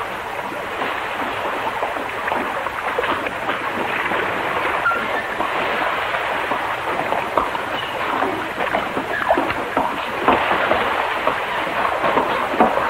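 Steady rush of water splashing off a mill's water wheel, a continuous noise without a beat.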